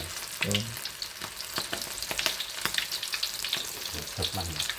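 Food frying in hot oil, a steady sizzle with dense crackling pops.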